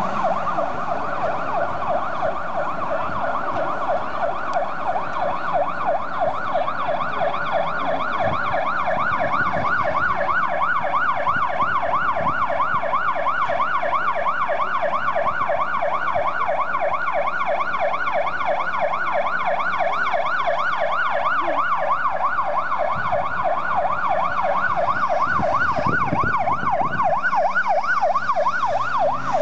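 Emergency vehicle sirens on a fast yelp, the pitch sweeping quickly up and down several times a second without a break, over city traffic.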